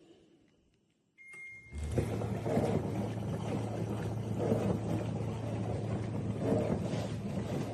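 Countertop mini dishwasher: a short electronic beep, then the wash pump starts and runs with a steady low hum and a swishing surge of spraying water about every two seconds.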